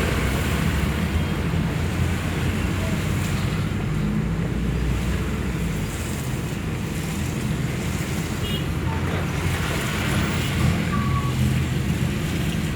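Road traffic in heavy rain: a steady wash of rain and water hiss over the low rumble of vehicle engines.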